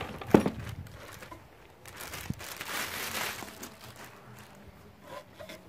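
Clear plastic wrapping rustling and crinkling as it is pulled off a petrol earth auger's powerhead, with a sharp knock about a third of a second in.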